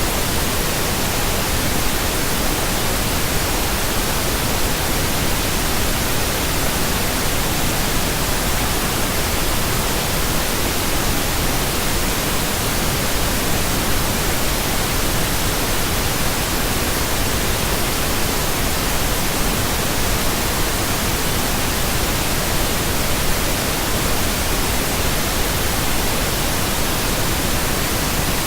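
Steady, unbroken synthetic pink noise: an even hiss spread across the whole range, with no tone, rhythm or change.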